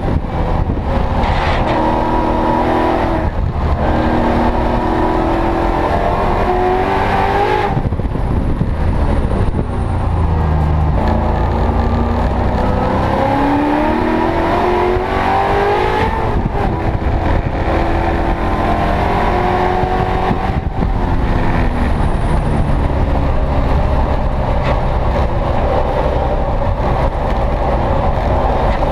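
Ford Coyote-based Aluminator XS 5.0 V8 in a Mustang race car, heard from inside the cabin during a racing lap. The revs climb under throttle and fall away sharply about four times as the car lifts, brakes and changes gear.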